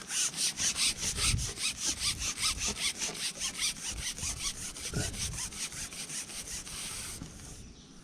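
A rapid, even rasping scrape of about six strokes a second, stopping abruptly about seven seconds in.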